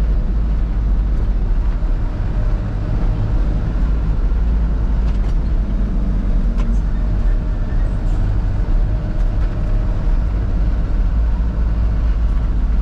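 Cab interior of a Fuso Canter light truck on the move: the diesel engine running at a steady cruise with a continuous low road and tyre rumble.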